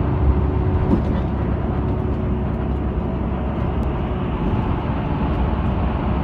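Steady low rumble inside a coach bus's passenger cabin as it drives along: engine and road noise heard through the floor and windows, with a faint steady hum.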